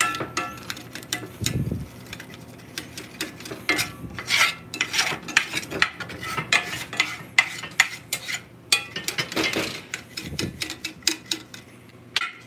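Metal spatula scraping and stirring thick gravy around a cast-iron skillet: a run of irregular scrapes and clinks of metal on iron.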